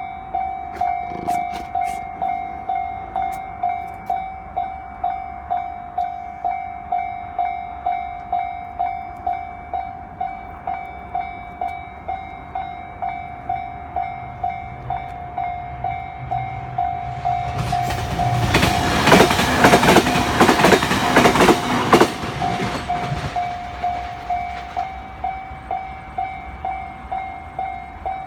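A railway level-crossing warning bell dings over and over at an even pace. About two-thirds of the way through, a train approaches and runs past for about five seconds, its wheels clattering on the rails. This is the loudest part, and then it fades away.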